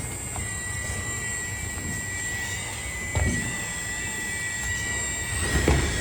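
Excavator engine running, with a steady high whine over its rumble and a knock about three seconds in.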